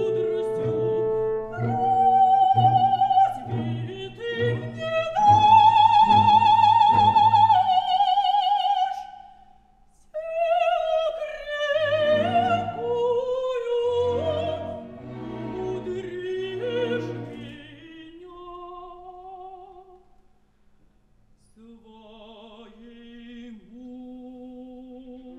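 A female operatic voice with strong vibrato sings long held phrases over a symphony orchestra. The loudest, highest notes come a few seconds in. After a short break the singing grows softer toward a brief hush, and soft held notes follow near the end.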